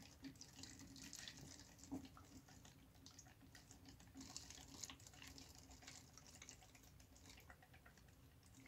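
Faint trickling and dripping of water inside a homemade plastic-bottle water clock, as irregular small ticks over a low steady hum.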